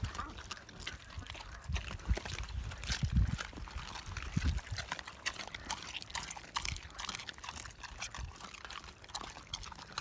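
Dogs chewing raw meat close up: a run of irregular wet smacking and crunching clicks. A few low thumps come in the first half.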